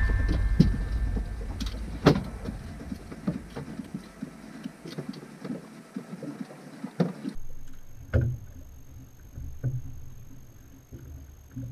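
Scattered knocks and clicks of fishing gear being handled on a boat deck over a low hum, the sharpest knock about two seconds in. About seven seconds in the hum drops away and a faint, high, steady whine sits under further knocks.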